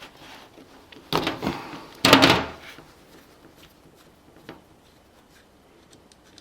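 Small metal carburetor parts being handled on a workbench during disassembly: two short noisy scrapes or clatters about a second apart, then a few faint clicks.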